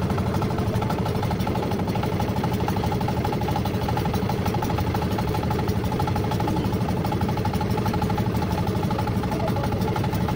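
Engine of a motorized bangka running steadily under way, with a fast even pulse.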